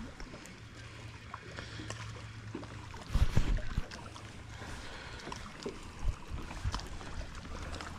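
Water noise around a small fishing boat, with a low steady hum through the first few seconds and a short burst of loud thumps about three seconds in while a crappie is brought in.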